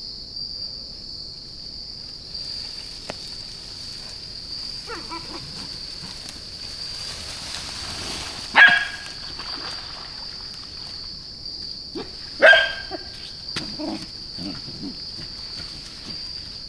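Wire-haired dachshund giving two short, loud barks, about halfway through and again some four seconds later, with a few fainter sounds after, over a steady high-pitched insect chorus.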